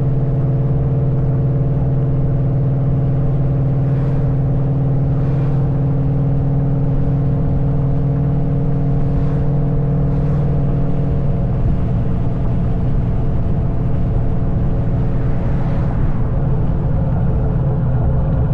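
2003 Mustang Cobra's supercharged V8 running through an SLP Loudmouth exhaust with a steady, loud drone at constant engine speed; about eleven seconds in the tone turns rougher and less even.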